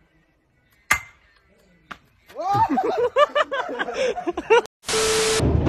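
A hammer strikes the top of a metal post with a sharp, ringing clang about a second in. Loud, rising-and-falling vocal cries follow for about two seconds. Near the end comes a short burst of TV static with a steady tone.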